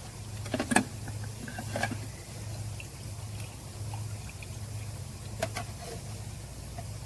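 Diesel fuel trickling and dripping from an old fuel filter pulled from a DD15 filter housing as it drains. A few sharp clicks come over a steady low hum.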